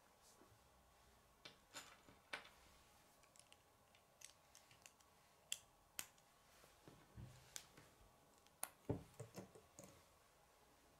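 Plastic K'nex rods and connectors clicking as they are snapped together and handled: irregular sharp clicks, with a quick run of them about nine seconds in.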